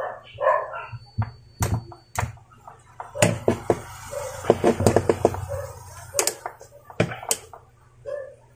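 Small clicks and ticks of a yellow film capacitor and its circuit board being twisted back and forth by hand to fatigue and snap off one of the capacitor's wire legs. A few short yelping calls sound over it, the most at about a third of the way in and again near the middle.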